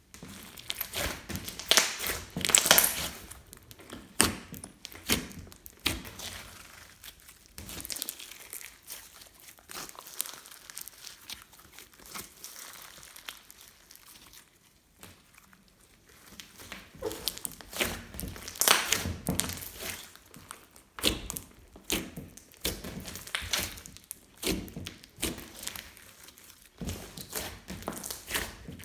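Glossy slime being squished, pressed and stretched by hand, giving irregular sticky clicks, pops and crackles, with two busier stretches of kneading.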